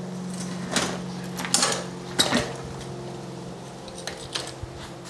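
Light metallic clinks and rattles of a bicycle rear derailleur and its steel shift cable being handled as the derailleur is worked off the frame. There are a few sharp clinks in the first couple of seconds, the loudest just after two seconds in, and two softer ones near the end, over a steady low hum.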